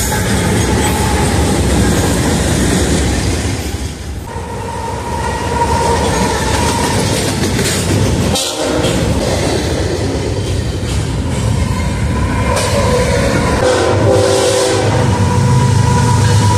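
BNSF diesel freight train passing close by, with engine rumble and the clatter of wagons over the rails. After a sudden cut about halfway through, another BNSF freight approaches, its locomotive sounding the horn in the second half.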